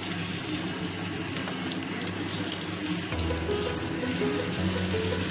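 Stuffed ash gourd slices frying in hot oil in a pan, a steady sizzle, with background music whose notes come in more clearly about three seconds in.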